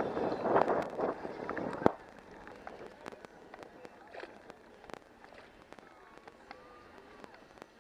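Wind buffeting the microphone over open water for about two seconds, cutting off suddenly. Then faint water lapping against a kayak, with scattered small splashes from paddling.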